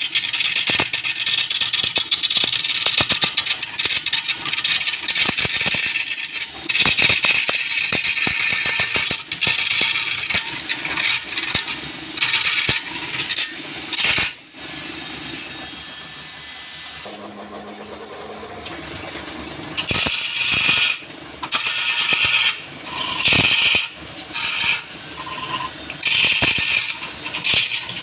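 A turning tool cutting wood spinning on a lathe, a high scraping hiss. It runs continuously, then eases off for a few seconds about halfway, and comes back as a series of short cuts about a second each.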